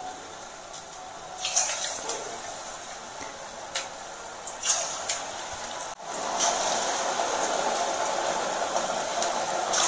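Malabar spinach fritters in rice-flour and gram-flour batter sizzling in hot vegetable oil in a kadai, with a few sharp crackles as more fritters go in. The sizzling gets louder about six seconds in, as the pan fills.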